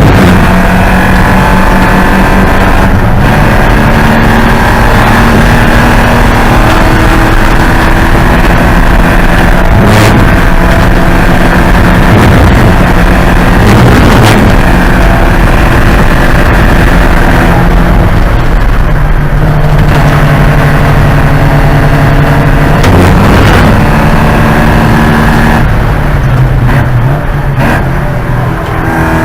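Porsche 944 Spec race car's inline-four engine running hard, its pitch stepping up and down repeatedly through gear changes and lifts.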